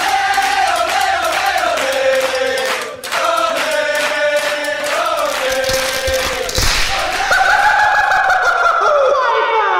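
Background music with a sung, choir-like melody; a long held note slides down near the end.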